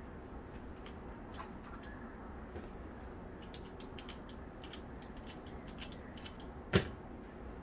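Rubik's cube being turned fast in a speed solve, its plastic layers clicking in quick runs. A single louder knock comes near the end.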